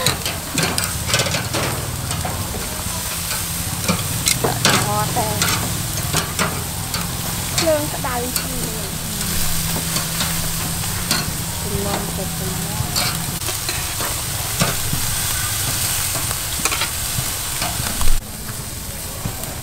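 Pork, beef and whole shrimp sizzling on a charcoal grill grate, with metal tongs clicking against the grate and food as pieces are turned. A low hum runs under the first two-thirds, and there is one loud knock near the end.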